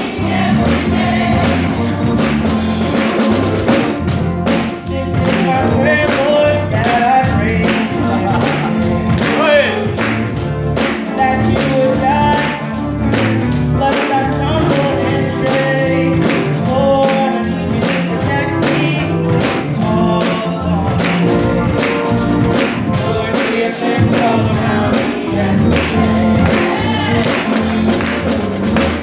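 Gospel choir singing an up-tempo song over a steady, driving beat.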